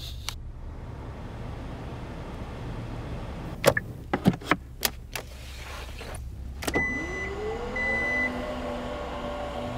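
A few sharp clicks of cabin switches and the steering-column stalk. Then the Kia Stinger's power tailgate motor starts with a whine that rises in pitch and settles into a steady run, with two short high beeps, over a low steady hum.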